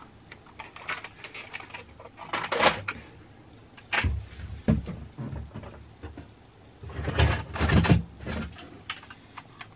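Plastic toys knocking and clattering as they are handled and rummaged through in a box of toy cars, with a sharp thump about four seconds in and a louder run of rattling near the end.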